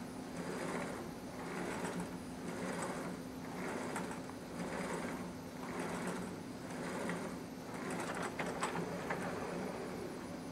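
Electric motors of a scale-model motion platform and crane rig whirring in a steady rhythm, swelling and fading about once a second as the platform pitches back and forth, over a steady low hum. A few sharp clicks come about eight seconds in.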